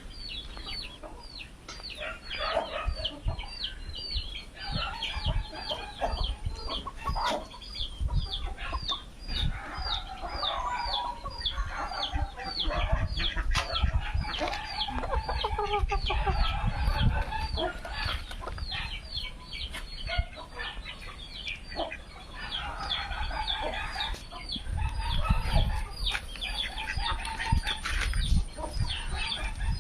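A flock of Aseel chickens calling: high, falling peeps repeat a few times a second throughout, over clucking. Low rumbles come in at times.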